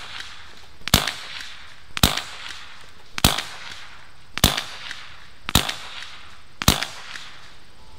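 Beeman Chief II .22-calibre PCP air rifle firing a string of six pellet shots, one sharp crack a little more than a second apart.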